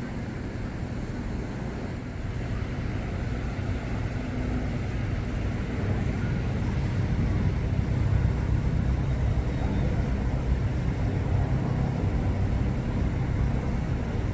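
Low rumble of street traffic, building gradually over several seconds and then holding steady.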